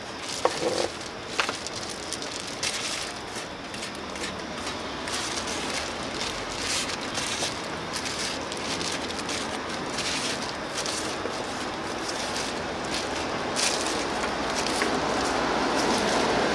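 Scattered crisp clicks and rustles of food being cut and packed at a street stall, over a steady street noise that grows louder near the end.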